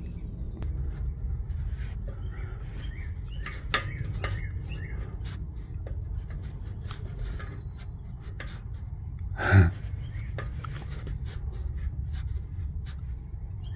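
Faint scattered clicks and rubbing from an oxygen sensor being turned out of the exhaust pipe by a gloved hand, over a low rumble, with birds chirping in the background. A short louder sound comes about nine and a half seconds in.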